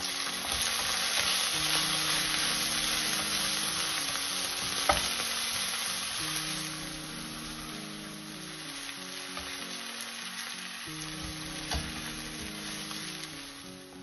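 Sliced onions sizzling in oil in a nonstick frying pan as they are stirred with a wooden spatula. The sizzle is louder over the first half and eases off after. There are two sharp knocks of the spatula on the pan, about five seconds in and again near the end.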